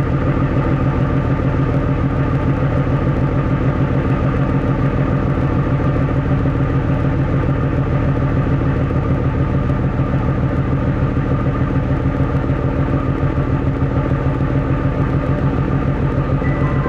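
Car ferry's diesel engine running under way: a low, steady drone with a fast, even pulse. A melodic chime starts at the very end.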